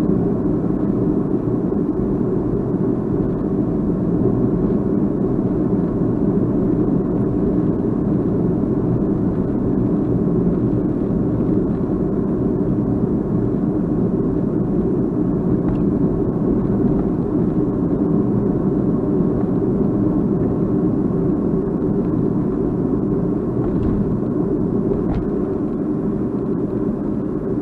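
Steady rumble of a running vehicle, recorded through an action camera's built-in microphone. The recording is free of the abnormal noise that faulty units of this camera (Crosstour CT8500) pick up.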